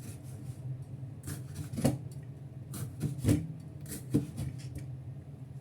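Kitchen knife slicing bitter melon on a chopping board: several uneven cuts, each a sharp knock on the board, about one a second. A steady low hum runs underneath.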